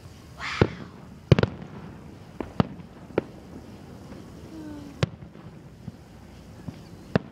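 Aerial fireworks going off: a brief hiss, then a string of sharp bangs spaced irregularly, including a quick double bang a little over a second in.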